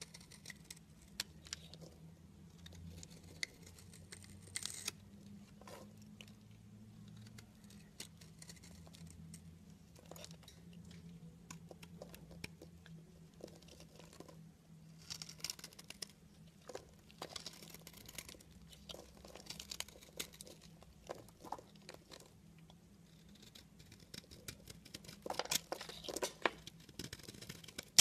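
Knife blade carving and shaving a dry, crumbly bar of soap: irregular crunchy scraping and crumbling as flakes break away. The scrapes come more often in the second half, and the loudest come a few seconds before the end.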